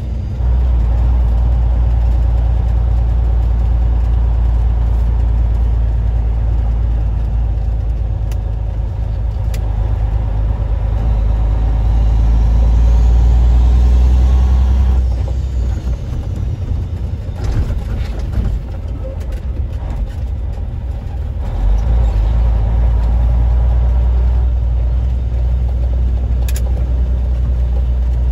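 Semi truck's diesel engine running, heard from inside the cab: the low engine drone builds for several seconds, drops off sharply about halfway through, and comes back strongly a few seconds later, as when the truck is driven through its gears. A faint high whine rises and falls as the engine builds, and there are a few light clicks from the cab.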